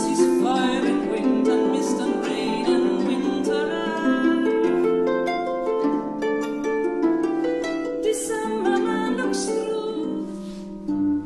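Harp playing: plucked strings ringing in a flowing melody over lower chord notes.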